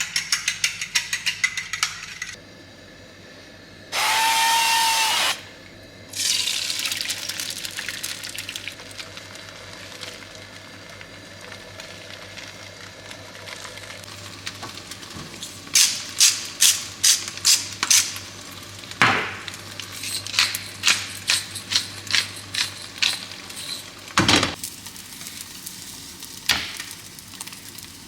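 Kitchen food-preparation sounds while a breakfast of eggs, egg whites and spinach is made. First a run of rapid clicking, then a brief loud whirring noise with a steady tone about four seconds in. Later comes a series of sharp knocks or taps, roughly two a second, for several seconds.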